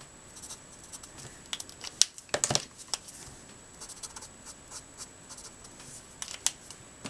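Letraset Promarker nib scratching on Neenah Solar White card stock in short strokes, with a few sharp clicks and knocks from handling the marker, the loudest about two seconds in and a small cluster near the end.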